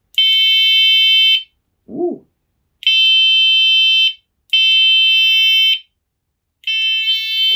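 Battery-powered electronic bicycle horn, rated at 130 decibels, sounding four blasts of a single steady high tone, each just over a second long. It is quite loud. A short vocal exclamation comes between the first two blasts.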